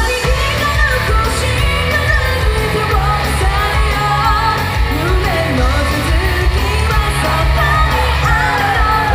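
A female vocalist sings live into a handheld microphone over a loud pop-rock backing track with a steady, heavy bass beat.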